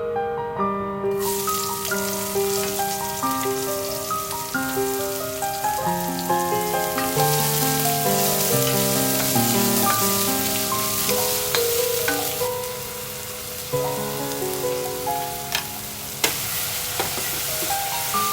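Food sizzling as it fries in hot oil, starting about a second in, with a few sharp clicks and pops along the way. Piano background music plays throughout.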